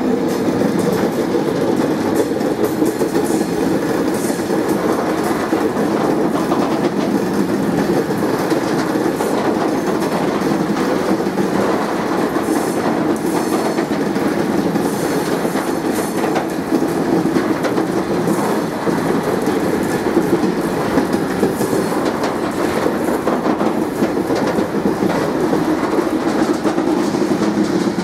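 Loaded Autoballaster hopper wagons of a heavy ballast train rolling slowly past close by: a steady rumble with the clatter of wagon wheels on the rails.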